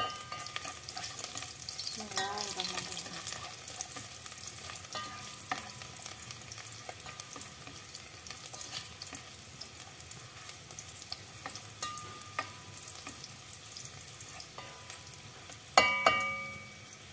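Sliced garlic sizzling and crackling in a little cooking oil in a nonstick pot, stirred now and then with a plastic ladle. Near the end comes a single loud, ringing knock that dies away over about a second.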